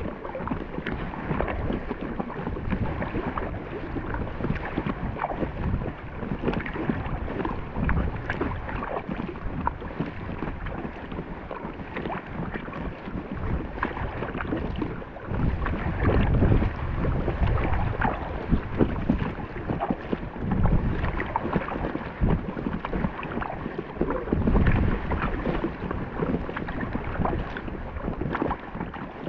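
Water splashing and lapping against an Intex Challenger K1 inflatable kayak under way into a headwind, with wind buffeting the microphone in gusts, strongest about halfway through and again near the end.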